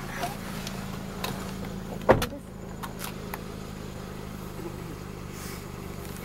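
A car engine idling with a steady low hum, and a car door slamming shut once about two seconds in, with a few light knocks and clicks around it.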